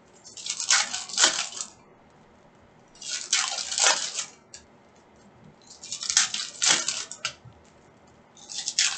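Foil trading-card pack wrappers crinkling and tearing as the packs are handled and opened, in four bursts about three seconds apart.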